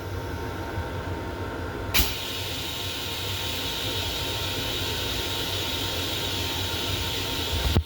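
Long Island Rail Road M7 railcar running, heard inside its small restroom: a steady low rumble with hiss, a sharp click about two seconds in, and a sharp knock near the end.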